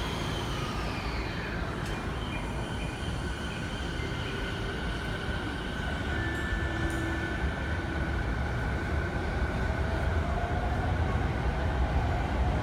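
JR 209 series 500-subseries electric train pulling out, its VVVF inverter and traction motors whining over a wheel rumble that grows louder. A tone falls in pitch over the first couple of seconds and another rises near the end as the train gathers speed. The inverter is a refitted unit, no longer the original Toshiba GTO.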